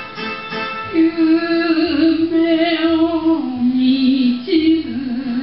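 Enka song: a solo voice starts singing about a second in over the instrumental backing, holding long notes with a wavering vibrato.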